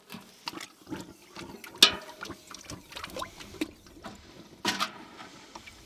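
Hot steel bolster being quenched in oil, bubbling and crackling irregularly, with sharp metallic clinks of metal against metal about two seconds in and again near five seconds; this is the hardening step for the tool steel.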